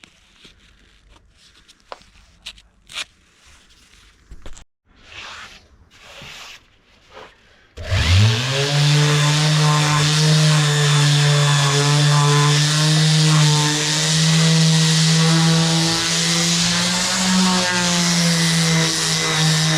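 A few light knocks and handling clicks, then about eight seconds in an electric power tool spins up and runs steadily: a motor hum under a rough, rubbing noise.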